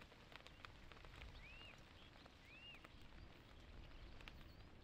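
Near silence: faint outdoor ambience with a few soft chirps, each rising then falling, and some faint ticks.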